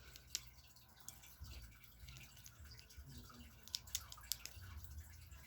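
Faint clicks of small LEGO plastic pieces being handled and pressed together, with a few sharp ticks close together about four seconds in, over a low steady hum.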